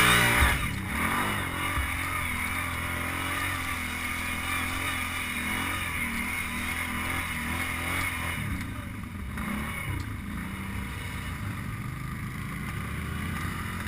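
ATV engine revving up at the start, then running steadily at low speed, its pitch wavering now and then.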